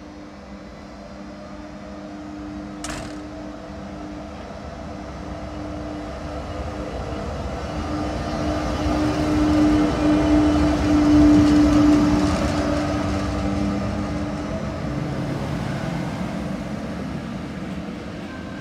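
A class 162 electric locomotive pulls a passenger train slowly along the platform with a steady electrical hum. The hum grows louder as the locomotive passes, about ten to twelve seconds in, then eases off as the coaches roll by. There is one brief sharp sound about three seconds in.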